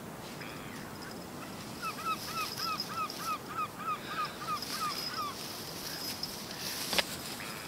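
Pied stilt giving a run of short, yapping calls, about three a second for some three seconds. A single sharp click near the end.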